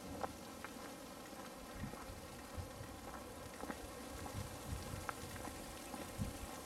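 Outdoor wind buffeting the camera microphone: irregular low thumps under a faint, even crackling hiss, with a few light clicks.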